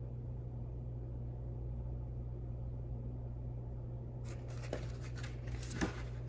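Steady low room hum, then from about four seconds in the rustle and light taps of a paper picture book being handled as its pages are turned.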